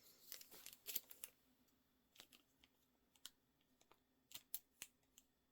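Faint rustling and small clicks of plastic packaging being handled, busiest in the first second, then thinning to a few scattered single clicks.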